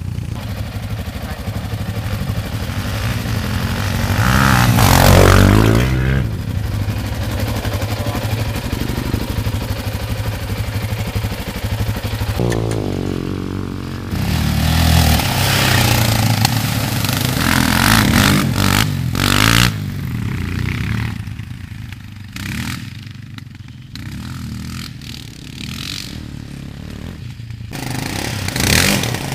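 Single-cylinder quad (ATV) engine running and revving up and down several times, with some clatter. It grows quieter and breaks up near the end.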